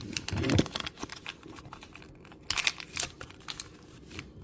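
Crinkly toy packaging being torn open by hand: a string of short crackles and clicks, with a louder burst of crinkling about two and a half seconds in.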